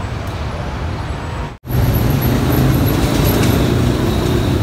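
Road traffic: a steady hum of car and van engines and tyre noise. The sound drops out for an instant about a second and a half in and comes back louder.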